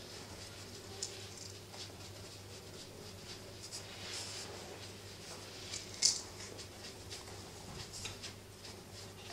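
Cloth hand puppets being handled: soft rustling and scratching, with a sharper scrape about six seconds in, over a faint steady low hum.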